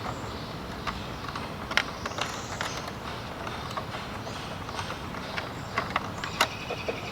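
Scattered light clicks and handling noises as a sprinkler valve wire is fitted into a terminal of a Rachio controller, over a steady background hiss.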